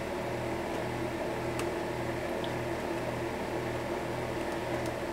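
Steady mechanical hum of workshop equipment, with a low throb pulsing about twice a second and a few faint ticks.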